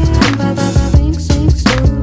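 Background music with a steady beat and bass; no singing.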